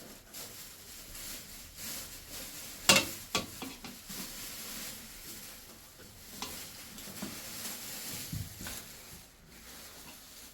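Food sizzling as it fries in oil in a pan, with a spoon clinking and scraping against the pan now and then. The sharpest clank comes about three seconds in.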